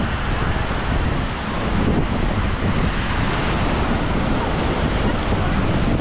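Small surf waves washing onto a sandy shore, with wind rumbling on the microphone. A steady wash of noise with no distinct events.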